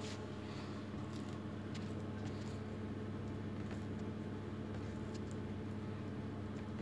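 Soft rustles, light taps and squishes of hands folding and pressing filled dough on a plastic oilcloth table, over a steady low hum.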